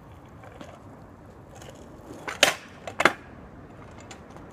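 Small stunt scooter rolling on rough tarmac with a low steady rumble, and two sharp clacks against the road, one about two and a half seconds in and one about three seconds in.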